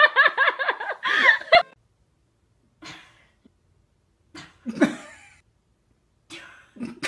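A person's voice, talking excitedly for about the first second and a half. After a pause come three short, quieter bursts that sound like laughter.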